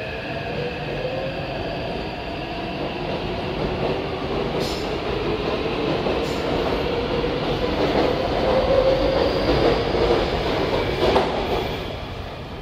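Taipei Metro C381 train with modified inverter software departing the station, its traction motors whining in several tones and its wheels running on the rails. It grows louder until the last car passes about eleven seconds in, then falls away.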